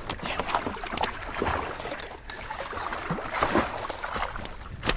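Water splashing and sloshing against a boat's side as a large hooked fish thrashes in a landing net, with irregular knocks and a sharp knock near the end.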